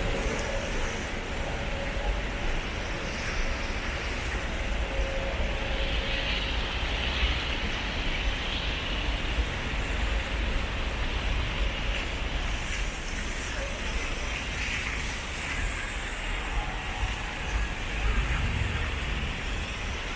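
Steady road traffic: a continuous rush of passing vehicles with a low rumble underneath.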